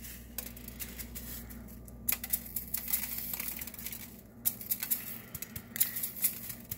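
Chocolate sprinkles shaken from a small jar, pattering in many quick light ticks onto a frosted cake. A low steady hum runs underneath.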